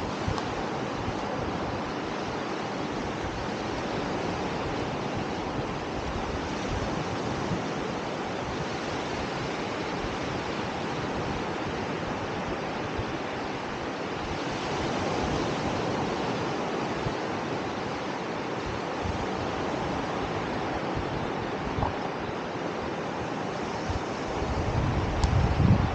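Sea surf washing onto a sandy beach, a steady wash of waves with wind buffeting the microphone, and a stronger low rumble of wind near the end.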